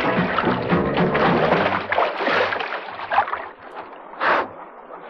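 River water splashing and churning as a bear swims and wades through it. The splashing thins out after about three seconds, with one short splash near the end.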